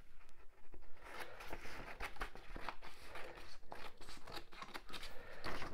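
A sheet of drawing paper rustling and crinkling as it is handled, a run of short, irregular scratchy rustles.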